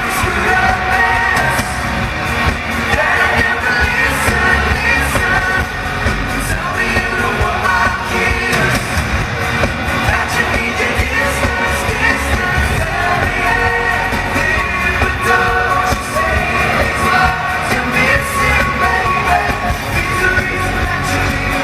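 Live pop band with lead vocals singing over electric bass and drums, heard from the audience in a large hall, with crowd noise underneath.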